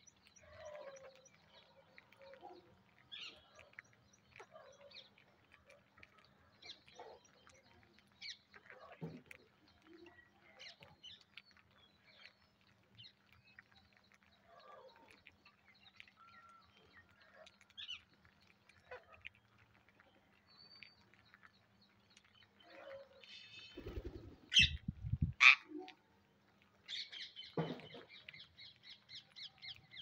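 A feeding flock of ring-necked parakeets gives scattered short chirps and squawks over small clicks of beaks pecking at grain. About three quarters of the way through, loud low thumps come with sharp squawks, and near the end one parakeet gives a long harsh, rasping screech.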